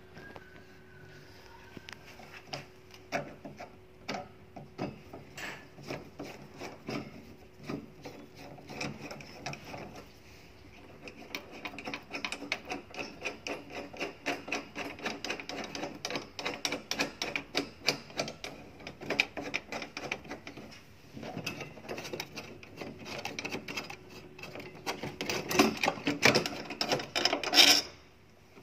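A screwdriver turning out the long steel screw that holds the inner and outer faceplates of an armored door's lock together: metal clicking and scraping with each turn, getting busier about ten seconds in and loudest near the end.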